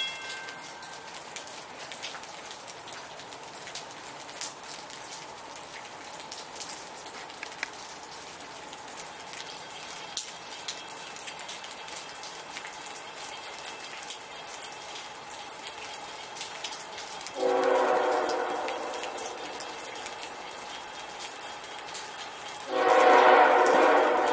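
Locomotive horn sounding two long blasts, the first about two thirds of the way in and the second near the end, over steady rain and dripping.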